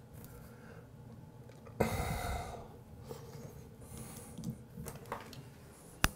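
Small plastic decorative caps being fitted onto a shower valve's trim: a short hiss about two seconds in, a few faint ticks, then one sharp click near the end.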